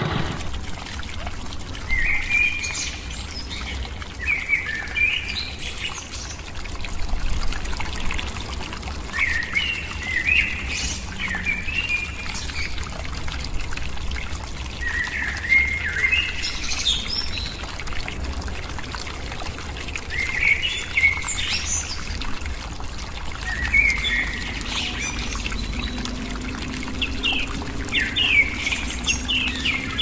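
A thin stream of water pours from a miniature water pump's pipe into a small toy pond, running steadily. Birds chirp over it in short phrases every few seconds.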